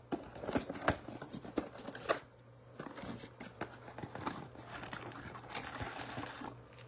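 Hands handling a cardboard trading-card box and a foil card pack: a run of sharp clicks and taps in the first couple of seconds, then a softer, steady crinkling of the pack wrapper as it is worked open.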